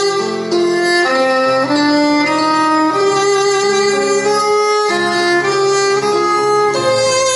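Violin playing a slow melody of long held notes that step from one pitch to the next, with lower sustained notes beneath.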